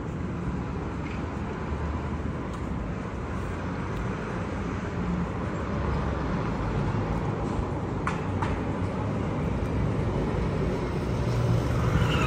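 Steady city-street traffic hum along a tram street. Near the end a municipal garbage truck's diesel engine comes in close and gets louder.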